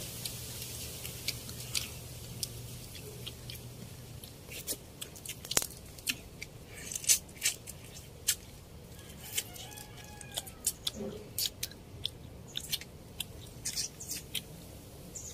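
Close eating sounds: chewing and crunching with irregular sharp clicks, as rice, crab and pork are eaten by hand.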